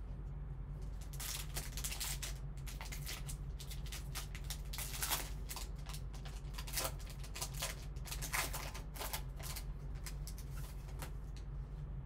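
Foil trading-card pack wrapper crinkling and tearing as it is peeled open, with the cards inside sliding and clicking against each other as they are handled; a run of irregular crackles from about a second in until near the end.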